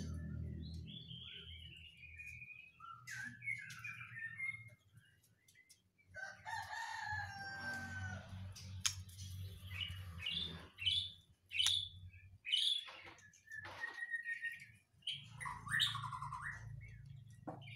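Young male white-rumped shama singing in short bursts of varied whistles, trills and chattering notes. A low rumble comes and goes underneath.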